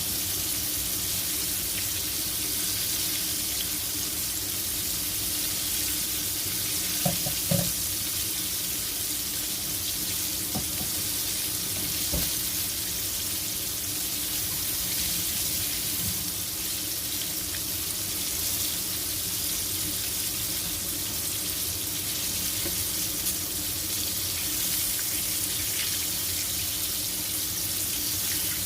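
A steady hiss with a low hum underneath, broken by a few light knocks: two close together about seven seconds in and one about twelve seconds in.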